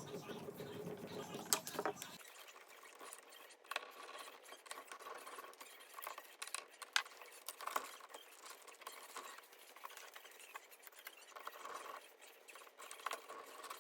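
Hands working wires and plastic dimmer switches back into a wall box: faint, irregular clicks and rustling.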